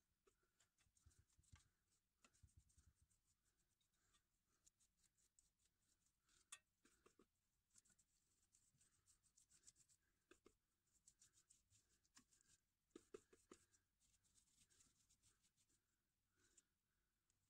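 Faint scratching and dabbing of a paintbrush's bristles working rust-remover gel onto a bare metal moped rack, with a few sharper taps of the brush against the metal.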